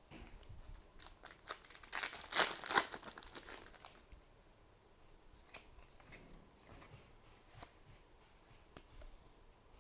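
A foil booster pack wrapper being torn open and crinkled, loudest about two seconds in, followed by faint light ticks of cards being handled.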